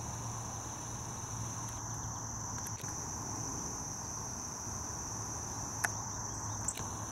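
Steady high-pitched trilling of an insect chorus, unbroken throughout, with two short clicks near the end.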